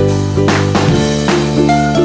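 Upbeat ukulele background music with a steady drum beat, about two beats a second.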